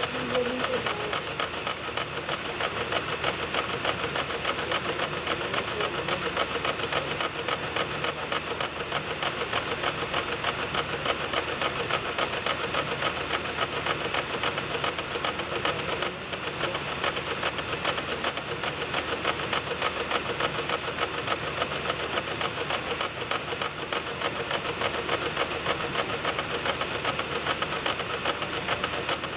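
Computer DVD drive clicking in a fast, even rhythm of a few clicks a second over the whir of the spinning disc, as it reads program files from a burned DVD.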